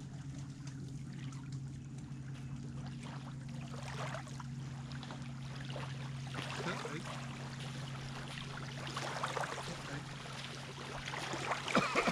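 Lakeshore ambience: a steady low hum under a light wash of water noise, growing a little busier toward the end.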